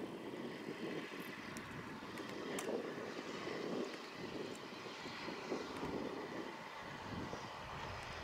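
Steam locomotive working its train: a continuous noise that swells and eases unevenly, with a few faint clicks.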